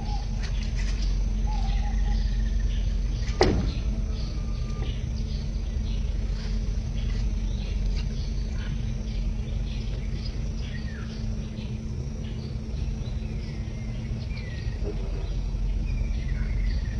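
Outdoor ambience: birds chirping in short calls and faint insect ticking over a steady low hum. A single sharp click comes about three and a half seconds in.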